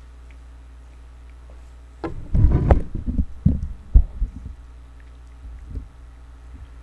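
A cluster of loud, dull thumps and knocks with rustling close to the microphone about two seconds in, then a few softer knocks near the end, over a low steady hum.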